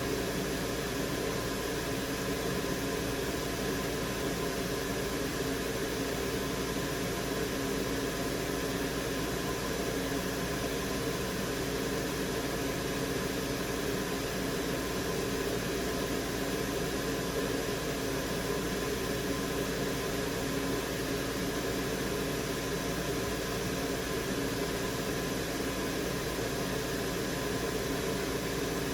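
Steady hiss of an electric blower or fan running, with a faint constant hum of several tones over it and no change in speed.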